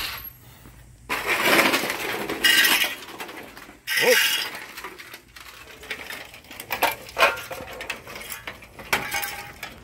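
Rusty steel exhaust parts (an old muffler and pipe) being handled on concrete: several short bursts of clinking and scraping, loudest in the first few seconds.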